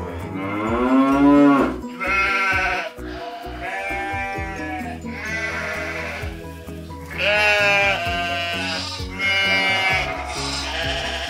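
Goats bleating again and again, each call about a second long and wavering, over steady background music.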